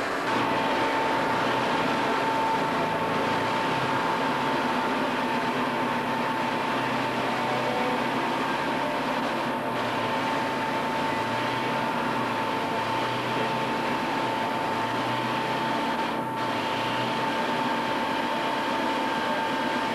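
Factory machinery running steadily: a constant mechanical noise with a steady high whine that comes in just after the start.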